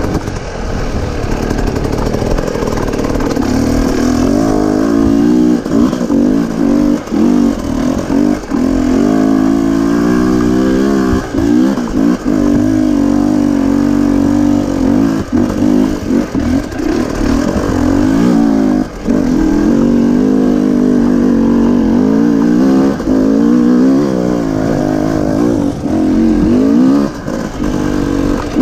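Dirt bike engine revving hard under load as the bike climbs a steep, rough trail. The throttle is constantly opened and eased, so the pitch keeps rising and falling, with brief drops every second or so.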